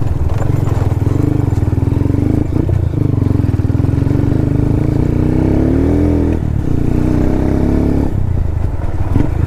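Hero Karizma R's 223 cc single-cylinder four-stroke engine running under way on a dirt trail, heard from the rider's seat. Around the middle its pitch rises for about a second, then drops away suddenly before the engine carries on.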